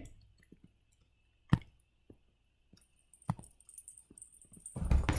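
A few sharp, isolated clicks and faint ticks from a stylus tapping and writing on a tablet screen, about two seconds apart, over quiet room tone. A louder, noisy sound begins right at the end.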